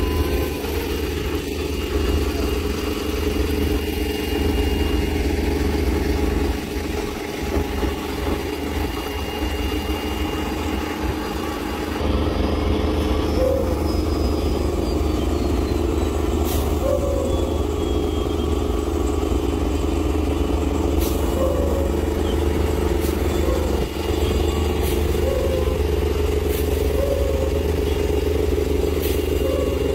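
Heavy diesel engine of a heavy-haul truck running steadily under load while moving a multi-axle modular trailer, a low continuous drone that steps up a little about twelve seconds in. A few short squeaks and faint clicks come over it.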